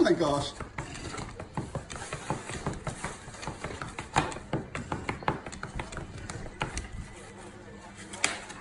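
Irregular clicking and crackling from food packaging being handled, several sharp ticks a second with pauses between them. It opens with a short whine that falls in pitch.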